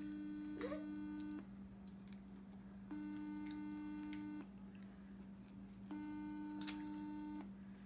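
Phone ringback tone on an outgoing call, heard through the phone's speaker: three rings, each about a second and a half long with a second and a half of quiet between, over a low steady hum. The call is not being answered.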